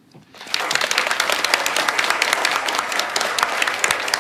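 Audience applauding: dense clapping from many hands that starts about half a second in.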